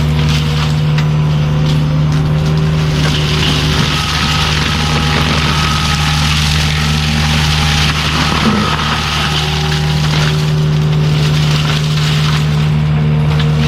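Kubota U55-4 mini excavator's diesel engine running steadily under high throttle, driving a Prinoth forestry mulcher head, a continuous drone with a faint higher whine coming and going.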